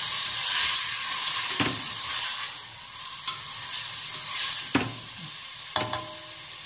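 Diced tomatoes sizzling with onion, garlic and spices in hot oil in a stainless steel pot, stirred with a spatula. The sizzle grows gradually quieter, and a few sharp knocks of the spatula against the pot come at intervals.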